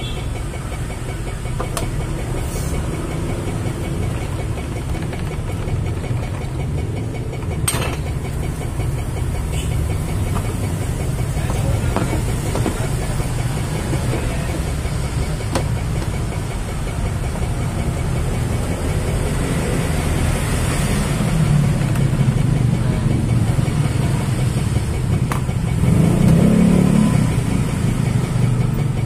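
Steady low rumble of road traffic from a nearby main road, swelling for a few seconds near the end as a vehicle passes close. A few sharp clicks of plastic machine parts being handled stand out, the clearest about a third of the way in.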